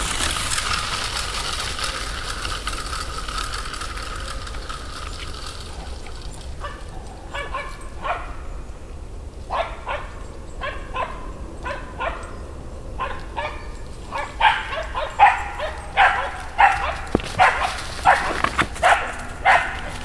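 Dog barking in short, repeated yips, starting about six seconds in and growing louder and quicker toward the end, about two a second. Before the barking starts there is a steady rushing noise.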